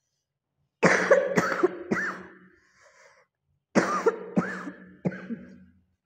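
A woman coughing in two fits, each of about three harsh coughs: the first about a second in, the second near the four-second mark.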